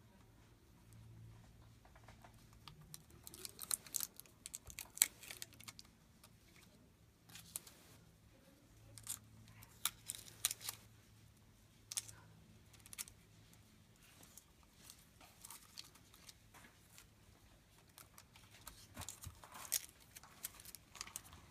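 Protective liner being peeled off the 3M adhesive backing of an LED light strip a little at a time: irregular short bursts of tearing and crinkling plastic film, with pauses where the strip is pressed down.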